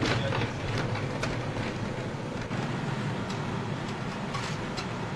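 Passenger jet cabin noise as the plane rolls along the runway: a steady low rumble with scattered knocks and rattles.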